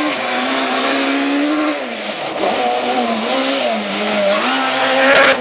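A Peugeot 207 rally car's engine at high revs on a gravel stage. The pitch drops about two seconds in as the driver lifts, then climbs and wavers through several gear changes. Gravel and tyre noise runs underneath, and the sound swells to its loudest near the end as the car passes close.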